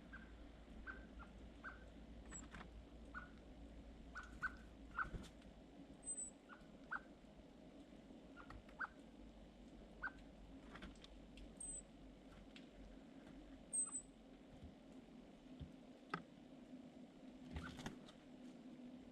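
Small birds calling faintly: short chirps repeated at irregular intervals, and a thin high note every few seconds, with a few soft clicks.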